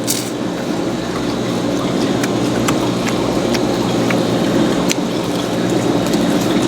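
Close-up chewing of fried, shell-on shrimp: a steady wet crunching with many small crackles as the shells break.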